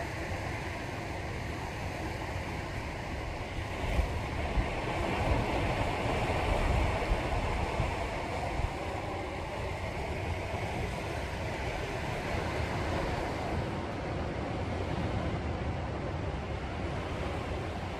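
Sea waves washing onto the shore, with one surge of surf swelling up about four seconds in and fading by about nine seconds. Low wind rumble on the microphone underneath.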